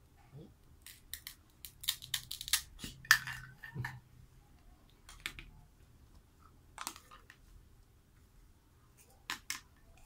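Plastic toy food pieces and a plastic toy knife clicking and knocking as they are cut apart and handled, with a dense run of sharp clicks and short rasps from about two to four seconds in and a few single clicks after.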